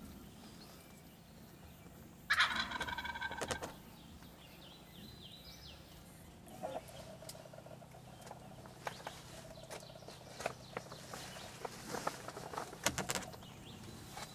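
Wild turkey gobbler gobbling once, about two seconds in: a loud, rattling gobble lasting about a second and a half. Faint scattered clicks and rustles follow.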